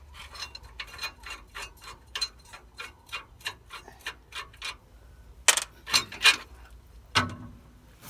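Hand tool working on a lead-acid battery's terminal clamp, clicking steadily at about four clicks a second, then a few louder knocks as the work on the clamp goes on.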